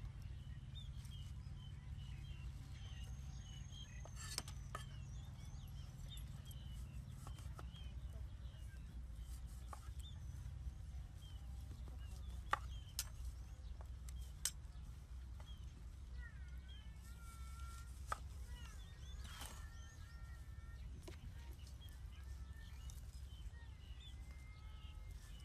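Rural outdoor ambience: small birds chirping and calling over a low, steady rumble, with a few sharp, separate taps as a knife cuts on a wooden board.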